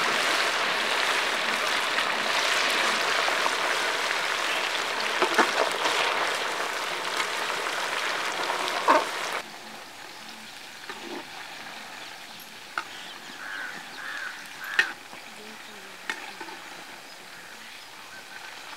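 Chicken pieces deep-frying in a pan of hot oil, with a loud steady sizzle and a few clinks of the metal skimmer against the pan. About nine seconds in, the sizzle cuts off suddenly, leaving a much quieter background with occasional clicks.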